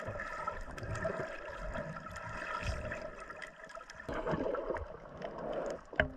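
Water sloshing and gurgling around a snorkeler's camera, with a faint steady hum through the first half and a sharp click near the end.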